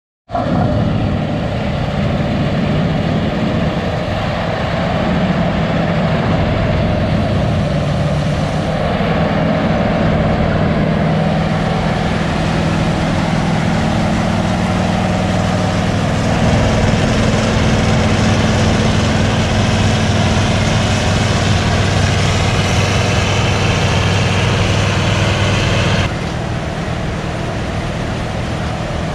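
Heavy diesel engine of harvest machinery running steadily. About 26 seconds in the sound turns quieter and duller.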